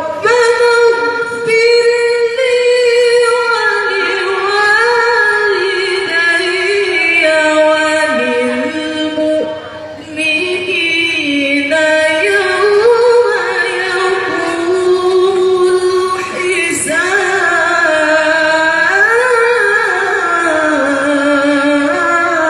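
A woman's voice chanting the Quran melodically, holding long ornamented notes that wind up and down in pitch, with a short break for breath about ten seconds in.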